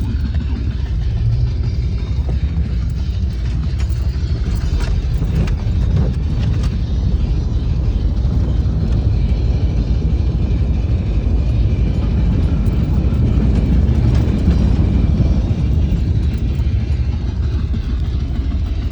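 A 4x4's engine running with a steady low rumble, with a few short knocks about five to seven seconds in.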